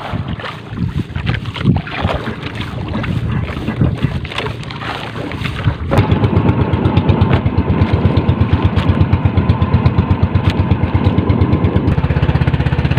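Small boat engine starting about halfway through and running with a fast, even chugging that settles into a quicker, steadier beat near the end. Before it, irregular knocks and water noise from the boat.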